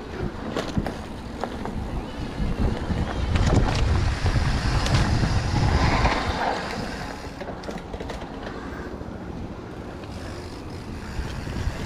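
Wind buffeting the microphone over the rumble and rattle of a mountain bike riding a trail, louder for a few seconds in the middle.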